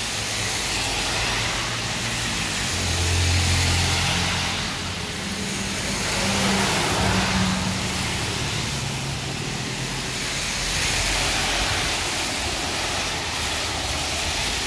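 Heavy rain hissing down on a wet road as cars pass, their tyres swishing through the water in slow swells. A low engine hum runs through the middle.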